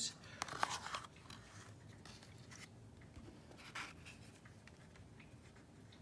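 Soft scraping and rustling of a plastic scoop in a plastic tub of embossing powder: a few scrapes in the first second and one more a little before four seconds in.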